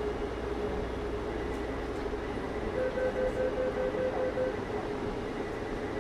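Automated rubber-tyred metro train running, with a steady rumble and a constant motor hum. Midway there is a short run of about eight quick beeps.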